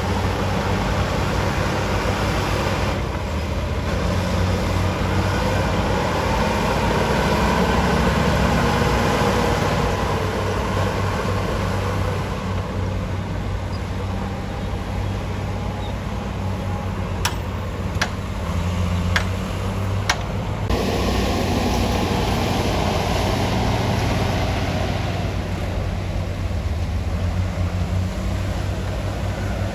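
Diesel engine of heavy earthmoving machinery running steadily under work, with about four sharp metallic knocks between about seventeen and twenty seconds in.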